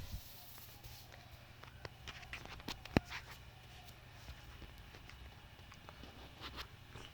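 Light clicks and taps of hands handling a laptop, most likely as the USB pen drive is pulled out, with one sharp click about three seconds in, over a faint steady low hum.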